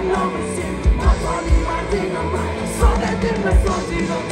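Live band music from a concert PA: a steady kick-drum beat under bass and guitars, with a singing voice.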